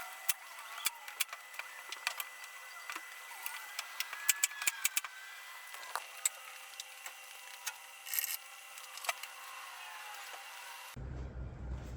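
A string of sharp clicks and light knocks, thickest about four to five seconds in, as things are handled and set down. About eleven seconds in the background changes abruptly to a low rumble.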